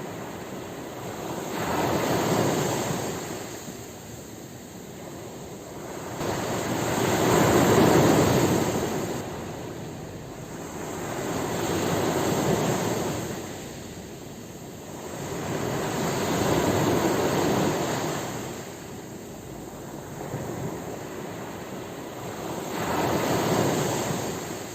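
Sea waves washing in, rising and falling in five slow surges about every four to five seconds. The biggest comes about eight seconds in.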